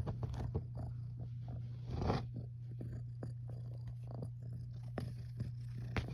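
A cat purring steadily, with scattered light clicks and rustles over it.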